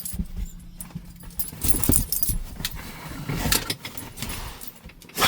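Irregular metallic jingling and clattering with scattered knocks, loudest about two seconds in.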